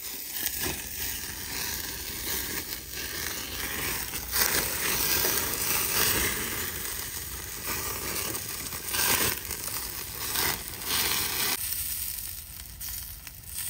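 Hamburger patty sizzling on a grill grate over a campfire, with the fire crackling and occasional sharp clicks and knocks.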